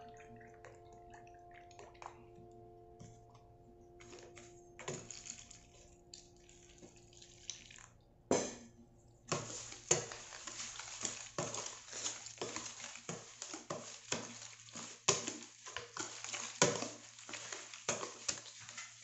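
Wire whisk scraping and clicking against a clear plastic container, mixing rolled oats and flour in quick irregular strokes from about nine seconds in, after a single sharp knock. Before that, quiet pouring and handling sounds.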